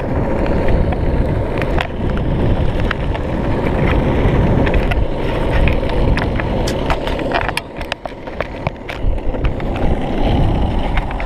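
Loud, steady rushing noise on a handheld action camera's microphone, with many scattered clicks and knocks as the camera is handled and swung about.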